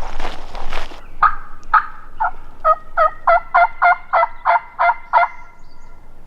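Footsteps crunching for about the first second. Then a run of about a dozen turkey yelps, each note dropping in pitch, coming quicker toward the end.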